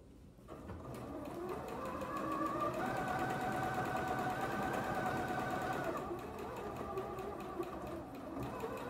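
Computerised sewing machine stitching a seam. Its motor whine rises in pitch as it speeds up over the first couple of seconds, holds steady, then drops to a slower speed about six seconds in and runs on to the end of the seam.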